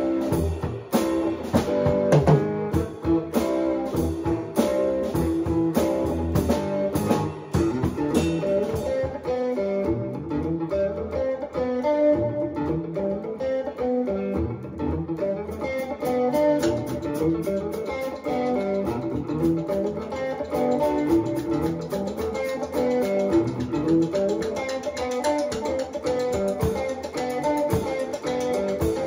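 Band rehearsal: a guitar plays a riff with a drum kit, the drums hitting hard at first and playing lighter from about ten seconds in.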